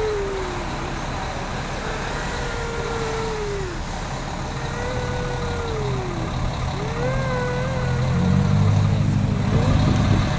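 A series of long warning-horn blasts, each about two seconds with the pitch sagging as it ends, sounded in the countdown before a building implosion. A vehicle engine runs underneath and gets louder near the end.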